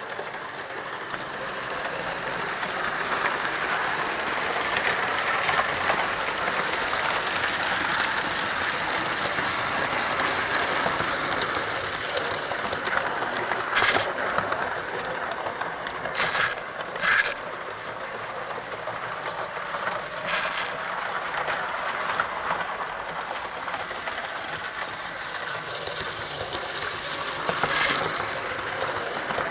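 Model train running along the track: a steady rattling hum of small wheels and motor, with a few brief sharp noises along the way.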